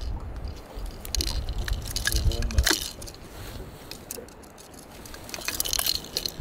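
Metal clicks and clinks of long-nose pliers against a lure's hooks as it is worked out of a northern pike's mouth, with handling knocks and a low wind rumble on the microphone in the first few seconds.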